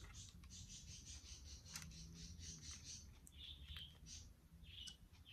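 Faint bird song: a rapid high trill lasting about three seconds, then a few short chirps, with soft clicks of the camera being handled.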